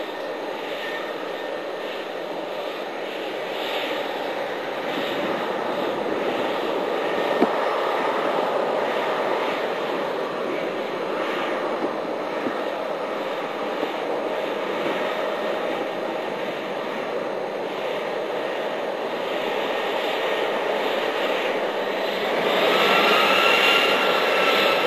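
Airbus A320-211's CFM56-5A jet engines as the airliner taxis: a steady rushing hum that slowly grows louder. Near the end it becomes louder still as the aircraft comes close, and a rising engine whine comes in.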